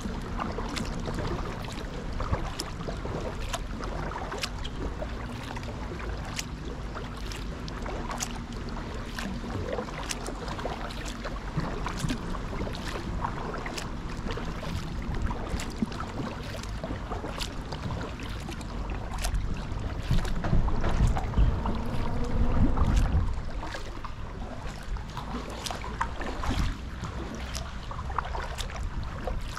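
Kayak paddling: the paddle blades dipping and water dripping and splashing in quick irregular ticks over the moving water. A louder low rumble swells for a few seconds about two-thirds of the way through.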